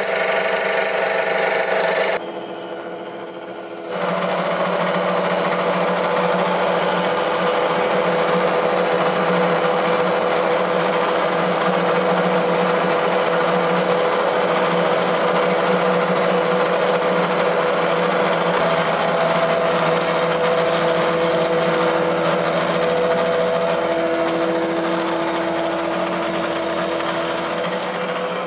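Bridgeport vertical mill cutting braze and cast iron in the worn slot of an arbor press counterweight: a steady machining chatter with a constant tone from the spindle. The sound drops away about two seconds in, then a cut starts again and runs steadily.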